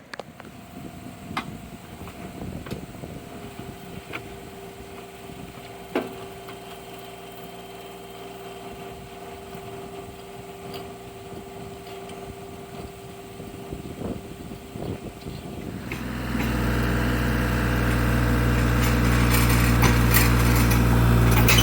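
Bobcat mini excavator's diesel engine running at low idle with a few scattered clicks and knocks, then throttling up sharply about three quarters of the way through and running louder and steadier as the hydraulics drive the auger attachment.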